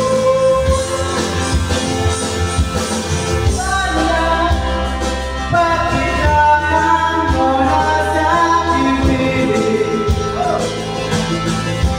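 A man singing into a handheld microphone over instrumental accompaniment, the sung melody rising and holding notes above a steady bass.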